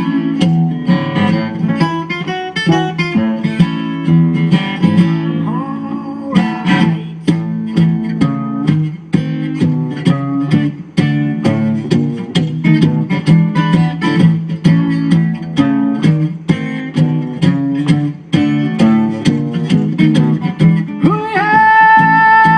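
Instrumental break in a live acoustic song: guitar playing a run of plucked notes over chords with a steady pulse. A long held note comes in near the end.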